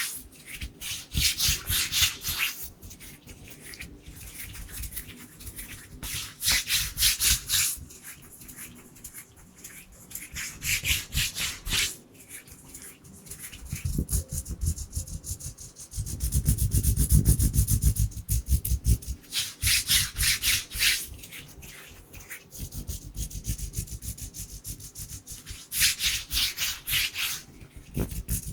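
Dry bare hands rubbing together close to the microphone in fast rhythmic swishing strokes. The rubbing comes in bursts of about two seconds, with quieter rubbing between them. A louder, muffled stretch of deeper rhythmic strokes comes in the middle.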